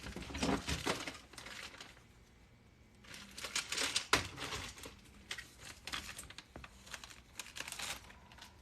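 Clothes and bags being handled: irregular rustling and crinkling, with a short lull about two seconds in and a sharp knock about four seconds in.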